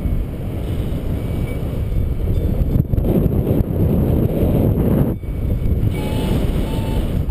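Wind buffeting the microphone in paragliding flight, a loud low rumble that drops out briefly about five seconds in. Near the end come two short electronic beeps, of the kind a flight variometer gives to signal climbing air.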